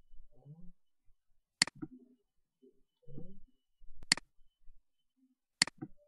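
Three sharp computer mouse clicks, about a second and a half to two and a half seconds apart, each followed closely by a softer second click.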